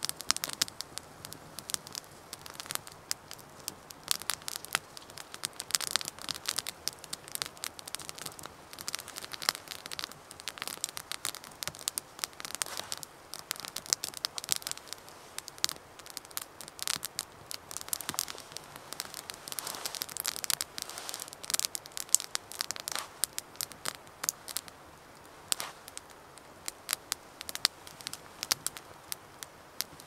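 Branch wood burning in a small Bushbox LF wood stove, crackling steadily with frequent irregular sharp pops and snaps. The crackling thins out for a moment near the end.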